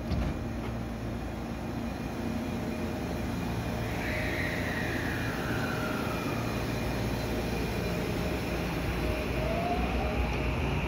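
JR West 223 series 6000-subseries electric train pulling away from the platform, its inverter and traction motors whining. A tone slides downward a few seconds in, then a new whine rises near the end as the train gathers speed.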